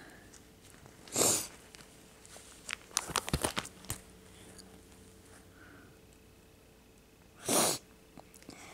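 A person sniffing twice through the nose, about a second in and again near the end. Between the sniffs, a quick run of crackles and clicks from the binder's plastic card sleeves as a page is turned.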